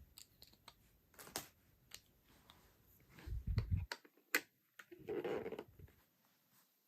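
Scattered plastic clicks and handling noise from a toy Kamen Rider Kaixa transformation belt being handled, with a low thump about halfway through and a sharp click shortly after.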